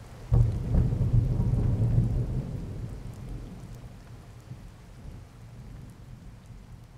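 A clap of thunder about a third of a second in, rolling low and fading slowly over several seconds, over steady rain.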